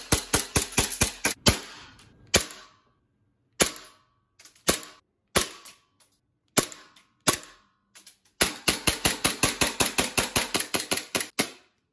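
Elite Force Glock 17 Gen 4 gas blowback airsoft pistol firing on green gas, each shot a sharp pop with the slide cycling. A quick string of shots opens, then single shots come about a second apart, and near the end a fast string of about twenty shots stops suddenly.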